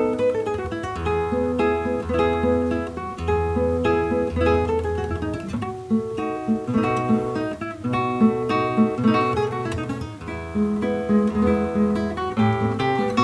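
Classical guitar played solo: a flowing line of plucked notes over held bass notes.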